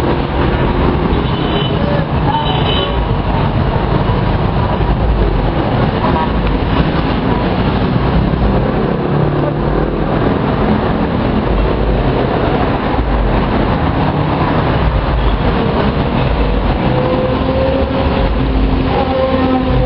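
Steady, loud roar of heavy road traffic from a multi-lane highway below, cars and motorcycles passing continuously. An engine note rises near the end.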